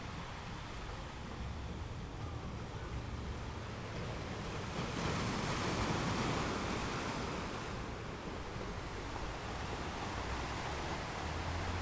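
Sea water washing and surging, with a low steady hum underneath; the wash swells louder about five seconds in and eases off again a few seconds later.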